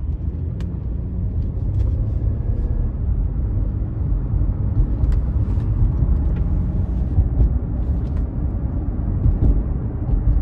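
Steady low road and engine rumble inside the cabin of a 2009 Cadillac CTS being driven, getting a little louder after about two seconds. The car has a newly replaced hub bearing, and no loud bearing noise stands out.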